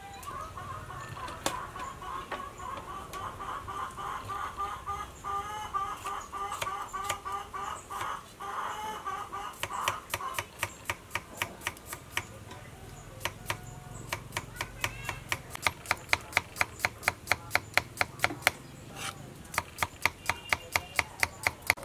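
Hens clucking for about the first half, then a knife chopping cucumbers on a wooden chopping block in quick, even strokes, about four or five a second near the end.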